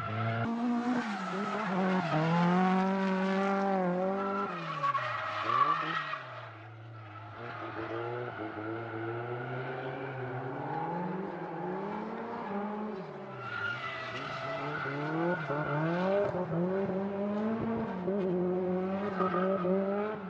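Nissan Silvia S15's four-cylinder engine revving hard while drifting, its pitch dropping and climbing again several times as the throttle is worked, with the tyres skidding and squealing.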